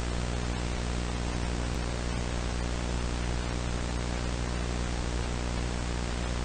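Steady analog-style static hiss over a low electrical hum, with a couple of faint ticks.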